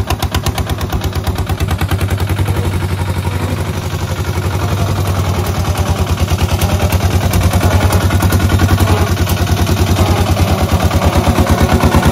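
Small mini tractor's engine running under way, a rapid, even train of loud exhaust beats over a steady hum, growing louder from about halfway through as it pulls away.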